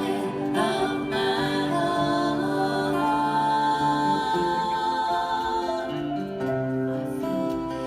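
Live devotional chant music with sustained pitched notes and some singing; a high note is held from about three seconds in for nearly three seconds.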